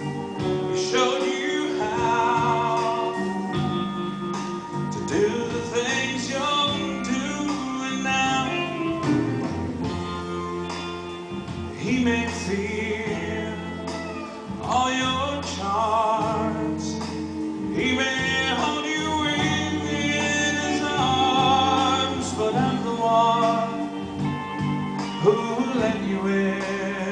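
A male vocalist sings a country ballad live with wide vibrato, phrase after phrase, over held chords from the backing band.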